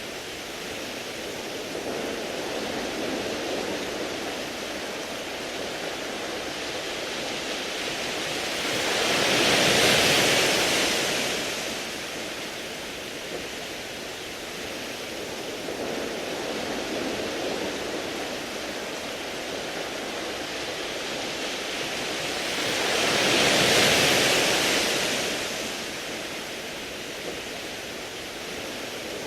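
Sea waves washing onto a beach of smooth round pebbles, a steady wash with two bigger waves swelling up and falling back about fourteen seconds apart.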